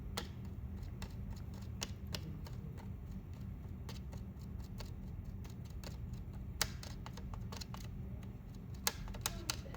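Irregular light clicks and taps from handling a small breadboard counter circuit as an object is passed back and forth through its photo interrupter, over a steady low hum. The clicks come in scattered single taps, with a quick cluster near the end.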